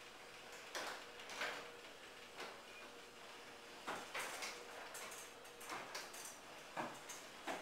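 High-lift carriage garage door moving under a LiftMaster 3800 jackshaft opener: a faint steady hum with scattered light clicks and knocks as the door travels.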